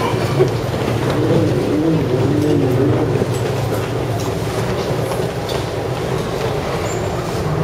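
Steady rumble and rattle of a moving vehicle heard from inside, with a faint wavering whine in the first few seconds.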